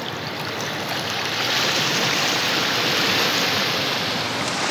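Sea water washing and surging over shoreline rocks: a steady rushing hiss that swells louder about a second and a half in.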